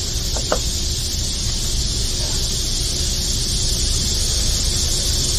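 Steady high hiss over a low outdoor rumble. About half a second in there is a light metallic clink as the scooter's CVT drive parts are handled.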